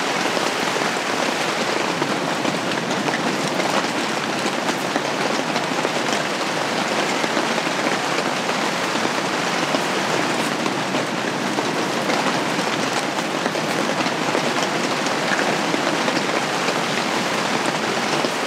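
Steady heavy rain drumming on a camping shelter, heard from inside as a dense, even patter of countless drops.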